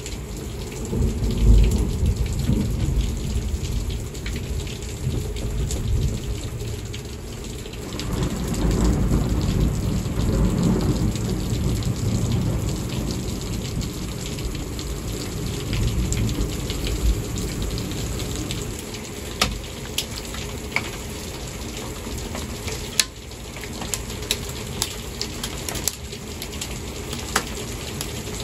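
Heavy rain pouring down in a thunderstorm, with deep rolling rumbles of thunder near the start and again about eight to twelve seconds in. In the later part, scattered sharp taps strike the window glass.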